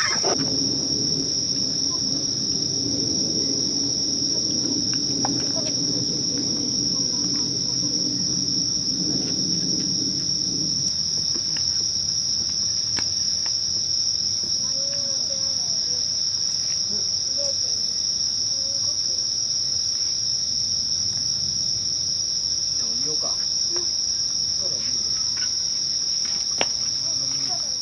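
Chorus of night insects, one steady high-pitched trill with no break, over a low background murmur that dies away about eleven seconds in.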